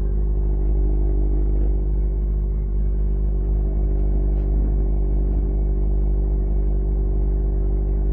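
Yamaha XJ6 S inline-four engine through an SC-Project aftermarket exhaust, running steadily with a deep, even tone and no revving.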